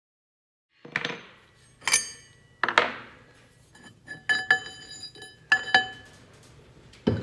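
Large steel drive sprocket and differential parts clanking together as they are handled on the hub: about eight sharp metallic knocks beginning about a second in, several ringing on briefly.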